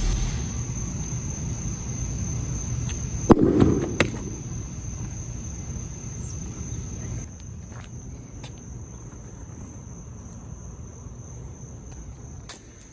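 A football bursting with a single sharp bang about three seconds in, followed by a short rush and a smaller click, over a steady hum and a thin high whine that fade slowly afterwards.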